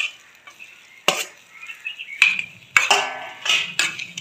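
Metal spoon mixing cooked rice in a steel pot: scrapes and clinks of the spoon against the pot, spaced about a second apart at first, then several in quick succession in the second half.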